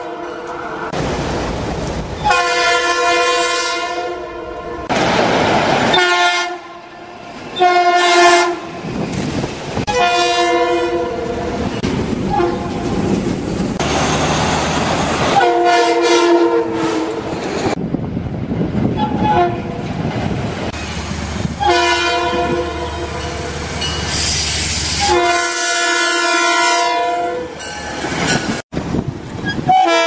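Metro-North commuter trains sounding their horns: repeated chord blasts of several notes at once, some short and some about two seconds long. Between the blasts comes the rumble of a train passing on the tracks.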